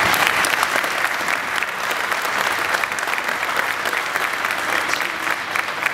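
Audience applauding: many hands clapping in a dense, steady patter that eases off slightly toward the end.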